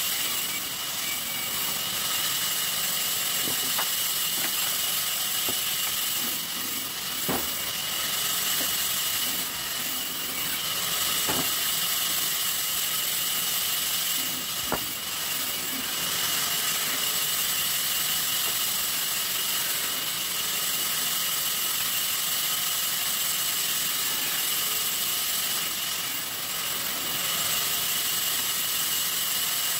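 Sawmill saw machine running with a steady high hiss and whine, with a few short knocks.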